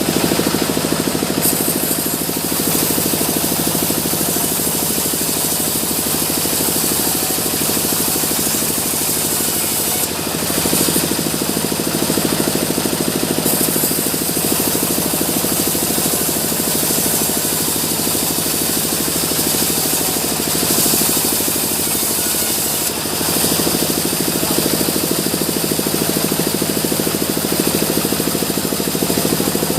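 Sawmill saw running and cutting through mahogany: a loud, steady mechanical noise with a dense, fast rattle. The sound dips and shifts briefly twice, about a third of the way in and again at roughly three quarters.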